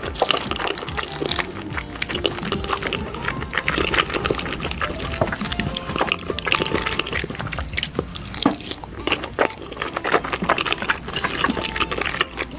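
Close-up wet, sticky food sounds, many irregular smacks and clicks, from rice mixed with egg being stirred and eaten. Background music plays underneath.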